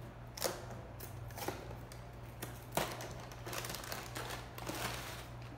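A cardboard cracker box being opened and the plastic sleeve inside handled: a few separate clicks and taps, then crinkling of plastic from about halfway in, over a steady low hum.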